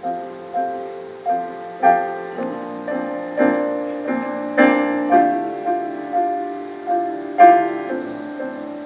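Solo piano playing a slow improvised passage, chords and notes struck in an even pulse about every half second, with a louder chord near the end.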